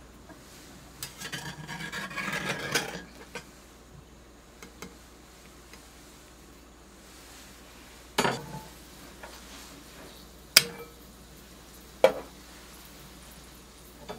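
Metal spatula scraping in a small Daiso cast-iron skillet while turning a soufflé pancake, for about two seconds, then three sharp, separate clanks of cast-iron cookware and lids being set down, each with a short ring.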